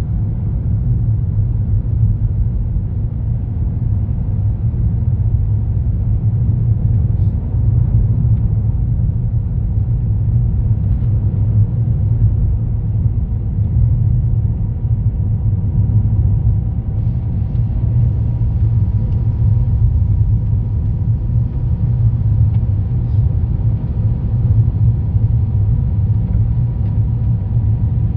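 Steady low rumble of a car driving on a snow-covered road, heard from inside the cabin: tyre and engine noise, with a faint steady whine.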